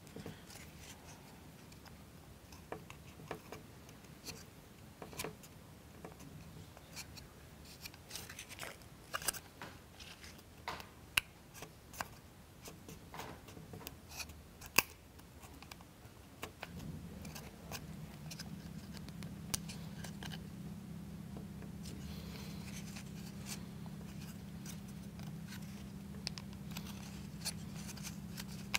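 Scattered light clicks and short scrapes of small plywood model parts being handled and a wooden toothpick being trimmed with a craft knife. A steady low hum comes in a little past halfway.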